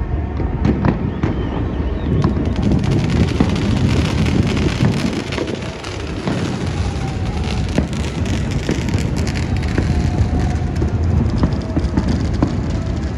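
Many fireworks going off across the city at once: a dense, continuous mass of overlapping booms, pops and crackles with no let-up.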